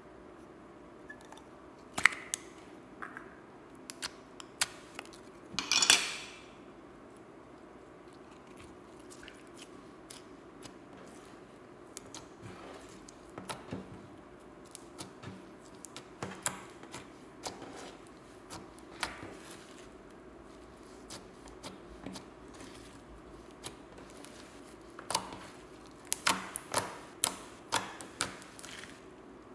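Hands kneading and squishing clear slime mixed with sand, giving irregular sticky clicks and pops. There is a louder crackling squelch about six seconds in and a quick run of pops near the end.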